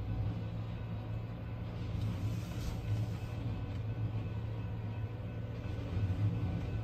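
Steady low engine rumble, heard from inside a vehicle cab, with no distinct knocks or beats.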